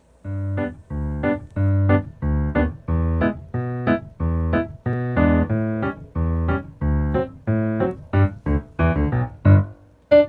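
Background music: a bouncy keyboard tune with a bass line and a steady beat, starting a moment in.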